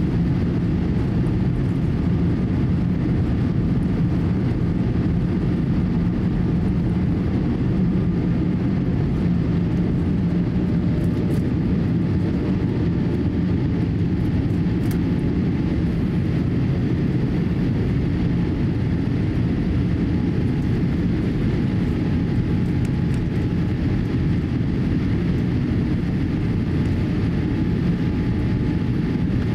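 Cabin noise of a Boeing 787-8 at takeoff thrust: the steady, loud roar of its engines and rushing air heard through the fuselage as the jet lifts off the runway and climbs out. A low hum in the roar eases somewhat about two-thirds of the way through.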